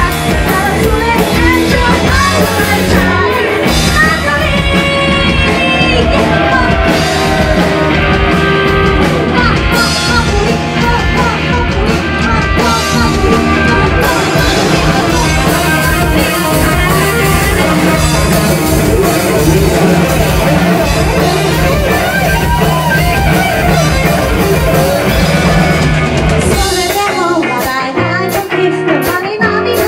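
Live rock band playing: a female lead singer over drum kit, electric bass and guitar. Near the end the bass and low drums drop out, leaving the voice over sparser, sharper hits.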